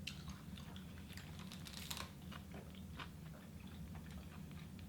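Close-miked chewing of food, with scattered small crunches and wet mouth clicks, over a steady low hum.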